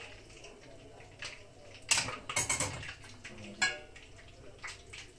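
Metal ladle clinking against the pot and plates while hot broth is ladled out. There are a few sharp clinks, the loudest about two seconds in, a quick run of them just after, and another about three and a half seconds in.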